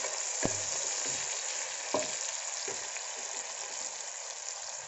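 Onions, curry leaves and bay leaves sizzling in hot oil in an aluminium pressure cooker, stirred with a wooden spatula that knocks against the pot about three times.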